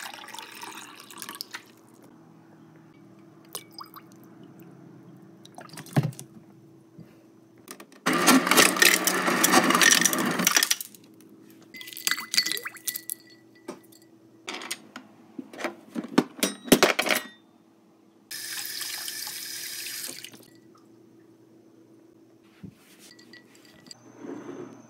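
Water poured from a plastic pitcher into a glass tumbler, then a louder rushing noise of about three seconds. Ice cubes are then dropped into the glass in two clusters of sharp clinks.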